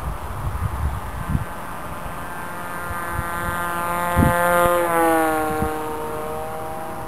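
Radio-controlled model airplane making a low fly-by: its motor and propeller whine grows louder, is loudest about four to five seconds in, drops in pitch as it passes, then fades. Wind buffets the microphone in the first second and a half.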